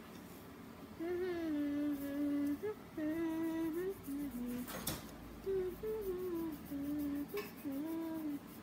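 A young girl humming a tune in phrases of held and sliding notes, with short pauses between them. A single brief tap about five seconds in.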